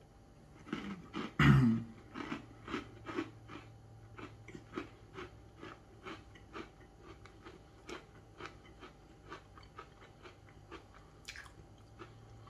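A person bites into a thick gingerbread-latte biscuit with chocolate pieces, close to the microphone: one loud bite about a second and a half in, then steady chewing at about three chews a second that grows fainter.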